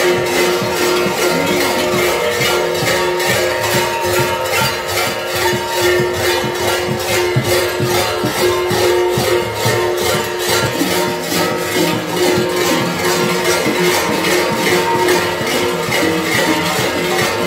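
Kukeri bells (hlopki) clanging together, many at once, in a steady fast rhythm, with their ringing tones sounding on between the strokes.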